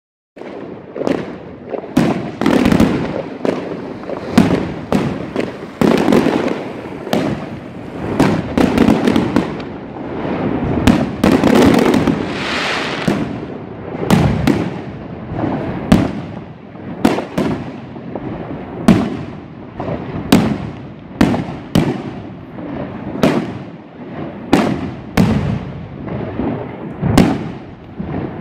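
Aerial fireworks going off in a rapid barrage: loud bangs from bursting shells, roughly one to two a second, each trailing off, with a continuous din between them.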